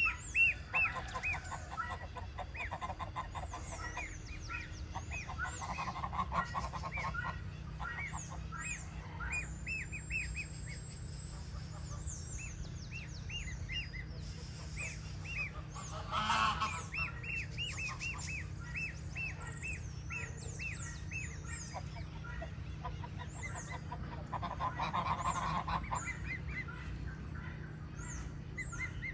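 Goslings peeping continually with short, repeated high calls, joined in a few bouts by lower, rapid chattering calls, with one louder outburst about halfway through.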